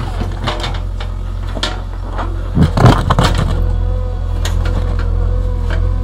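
JCB 3DX backhoe loader's diesel engine running steadily under load while its backhoe bucket digs into dry soil and clods, with cracking and scraping of earth and stones and a loud crunch about midway. A steady whine joins about two-thirds of the way in.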